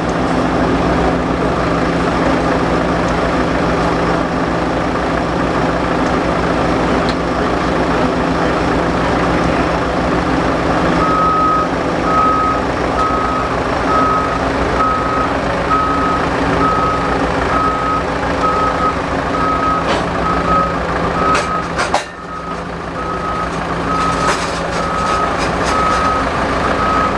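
A heavy machine's engine runs steadily. About a third of the way in, a reversing alarm starts beeping, roughly once a second, and keeps going to the end. Near the end of the second third there is a brief dip in the engine sound with a few clicks.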